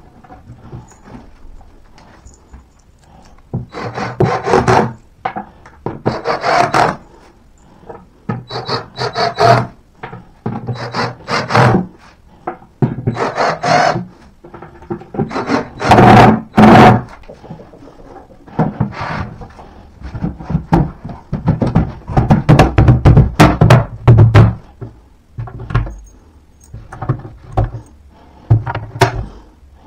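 White particleboard flat-pack furniture panels being handled, slid and knocked together, in a string of irregular rubbing scrapes and sharp knocks.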